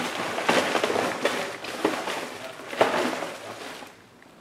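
Trading-card packaging being handled: rustling and crackling with a few sharp cracks, stopping about four seconds in.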